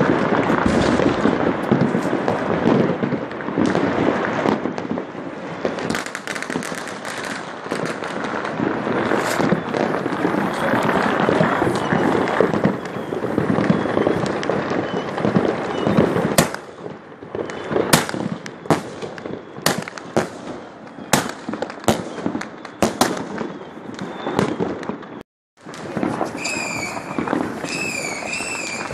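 Firecrackers and fireworks going off in a dense, unbroken crackle that thins out about halfway through into separate sharp bangs. Near the end, whistling fireworks shriek with a warbling, rising and falling pitch.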